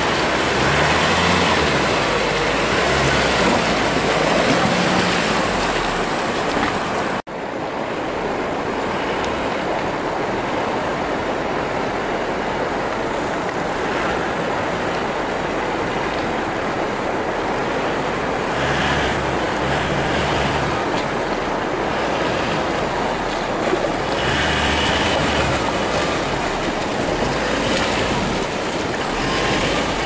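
Isuzu V-Cross pickup's engine running as it drives through a shallow, rocky river, over the steady rush of flowing water. The engine swells a few times, and the sound breaks off briefly about seven seconds in.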